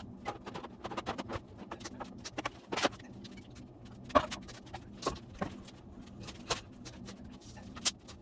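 Irregular clicks and clinks of metal hand tools as a harmonic balancer puller is set up on the crankshaft damper of a 5.3L LS V8. A few sharper knocks stand out, about three, four and eight seconds in.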